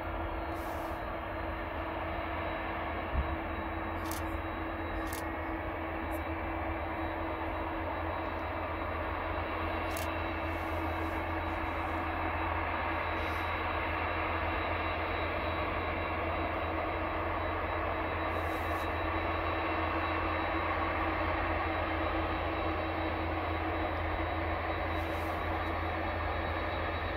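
Jet engines of a distant airliner moving on the airfield: a steady rumble with a constant hum, growing a little louder past the middle. A single brief low knock about three seconds in.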